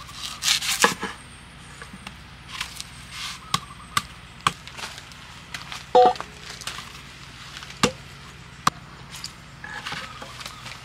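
Machete chopping and tapping at a pared young coconut on a wooden block: a series of separate sharp knocks, irregularly spaced. About six seconds in, a short ringing clink as a stainless steel bowl is set down on the wood.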